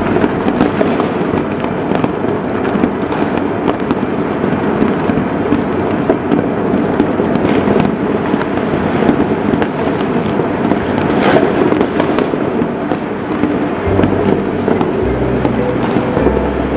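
Fireworks display: a dense, continuous crackling and popping of many bursting shells, with deeper booms in the last few seconds.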